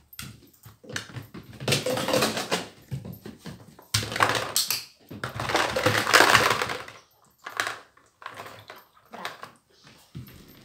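Clear plastic bowl clattering and scraping, with plastic toy vegetables rattling inside it, as a small dog shoves and tips it. The noise comes in two bursts, about two seconds in and again from about four to seven seconds in, with lighter knocks between and after.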